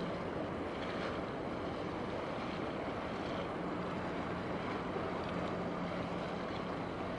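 Container ship under way: a steady low engine hum that swells and fades, under a constant wash of wind on the microphone and water noise.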